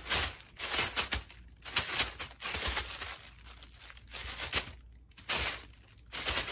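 Thin plastic bag crinkling and rustling in quick, irregular spells as a kitten pounces and scrambles on it.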